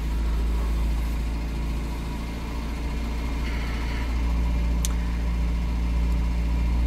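Skoda Favorit's four-cylinder petrol engine idling, heard from inside the cabin; the level sags slightly a little after two seconds and picks up again after about four. The owner puts this idle problem down to the car not being driven regularly, which can make the engine die at idle.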